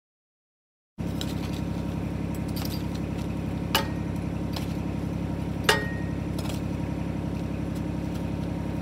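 Mini excavator's diesel engine running steadily, starting about a second in, with two sharp clanks about three and six seconds in.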